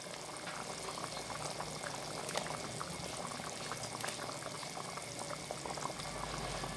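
Thin egg-curry gravy bubbling at a steady boil in a wok, a continuous soft crackle of small popping bubbles.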